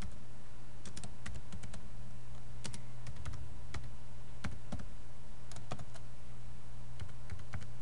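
Typing on a computer keyboard: irregular keystrokes with short pauses, over a steady low hum.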